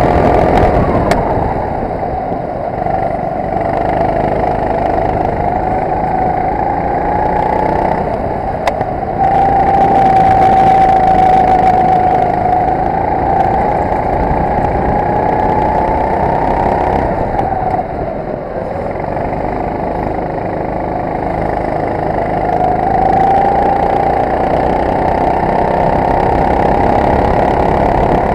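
Racing kart engine at full throttle, heard from on board the kart. The engine note drops as the driver lifts off about a second in and again around seventeen seconds in, then climbs again under acceleration.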